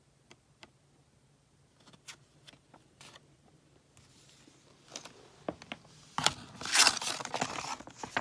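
Handling of paper and cardboard: scattered light clicks and page flicks as an instruction booklet is leafed through, then a louder rustling scrape of paper and cardboard packaging lasting about two seconds near the end.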